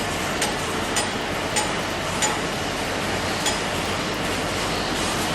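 Steady running noise of a mesh belt heat-treatment furnace line, with sharp metallic clinks at irregular intervals of about half a second to a second in the first few seconds.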